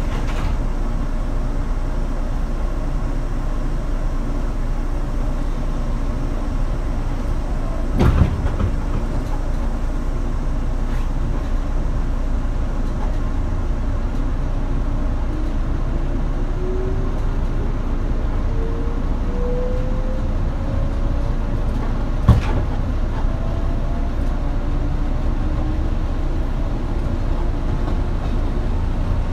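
117-series electric train running, its MT54D traction motors whining with several tones that rise slowly in pitch from about halfway on as the train gathers speed, over a steady rumble. Two single knocks, about 8 s and 22 s in.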